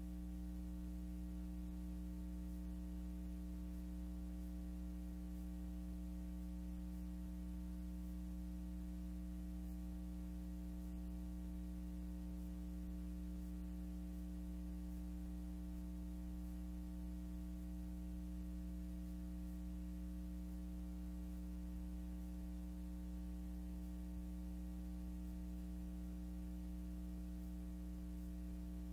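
Steady electrical hum with several unchanging overtones and a faint hiss underneath. It is the only sound: the film is silent, so this is hum on the soundtrack rather than any sound from the scene.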